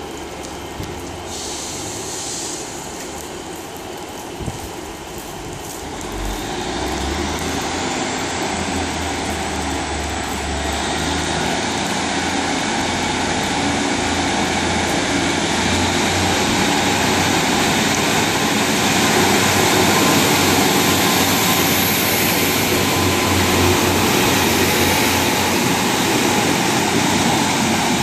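Class 150 Sprinter diesel multiple unit pulling away from a station, its underfloor diesel engines revving up under power. A whine rising in pitch comes in about six seconds in, and the sound grows louder as the train gathers speed and passes.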